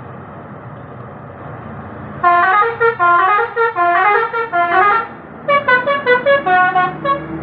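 A passing bus's telolet horn, a set of musical air horns, plays a quick tune of short rising and falling notes for about three seconds, pauses briefly, then plays a second run. Before it there is a low steady rumble of road traffic.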